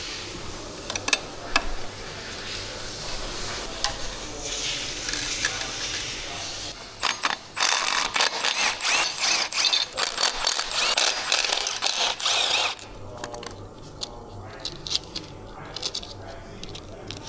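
Ratchet wrench clicking rapidly as it turns a fastener, in a run of about six seconds in the middle, with scattered tool clicks and knocks before and after.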